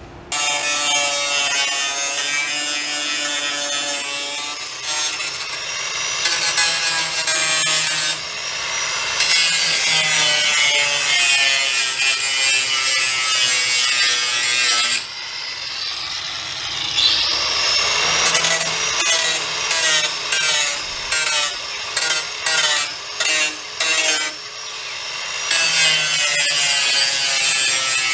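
Angle grinder grinding down the edge of an aluminium sheet, a steady motor whine over grinding noise. It cuts out about halfway through and spins back up with a rising whine, then runs in about eight short bursts before running steadily again near the end.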